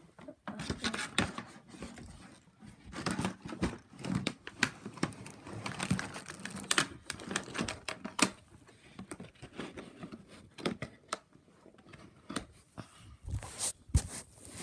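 Plastic bag crinkling and rustling as it is handled, with irregular clicks and knocks close to the microphone.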